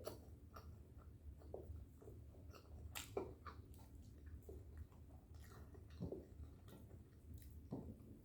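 Faint chewing and mouth smacks of a person eating, with short irregular clicks scattered through.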